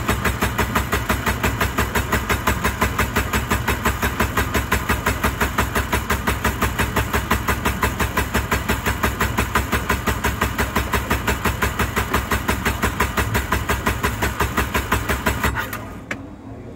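Williams jet tender's inboard engine cranking on its starter motor without firing, a steady rhythm of about five compression beats a second that stops abruptly near the end. The engine won't start.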